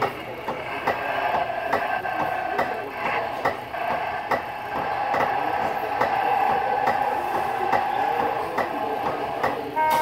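Jolly Roger bulldozer kiddie ride running: a warbling electronic tone from its speaker, held longest in the second half, over regular clicks about twice a second.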